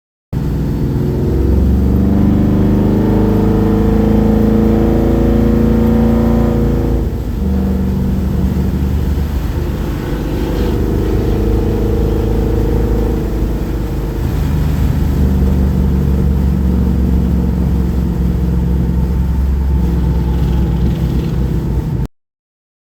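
Car engine accelerating: its pitch climbs for about seven seconds, drops suddenly as at a gear change, then runs on at a steadier pitch with small rises and falls. It starts and cuts off abruptly.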